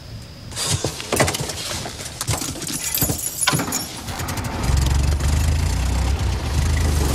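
A vintage car: a run of clicks, knocks and rattles, then about four and a half seconds in its engine comes on and runs with a steady low hum.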